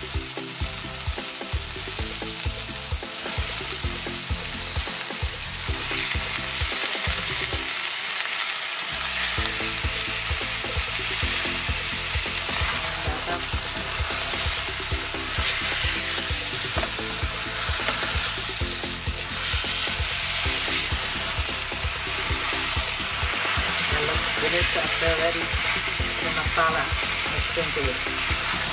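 Gilbaka catfish steaks frying in hot oil and curry seasoning in a nonstick pan, sizzling steadily while a spatula stirs and turns them.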